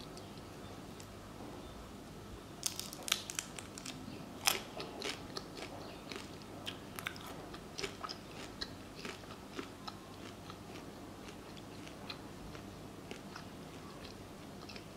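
Someone eating fried fish and shrimp with kenkey: quiet crunches and chewing clicks, a bunch of sharper crunchy bites about three to five seconds in, then scattered smaller crunches.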